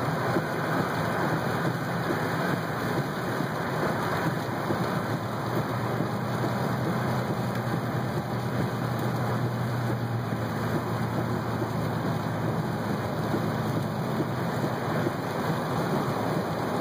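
Thunderstorm rain on a car's roof and windshield mixed with tyre noise on the wet road, heard from inside the moving car as a steady rush. A low rumble joins in for several seconds in the middle.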